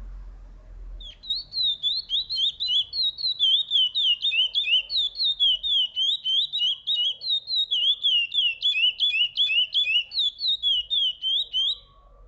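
Curió (chestnut-bellied seed-finch) singing: from about a second in, a long, fast run of clear whistled notes, each slurring down or up, several a second, stopping just before the end.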